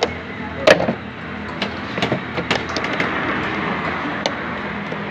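Several sharp clicks and knocks, the loudest about two-thirds of a second in, over a steady background hum.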